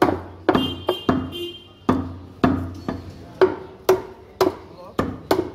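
A butcher's cleaver chopping buffalo meat on a round wooden chopping block, giving about a dozen sharp thwacks at roughly two a second with uneven gaps.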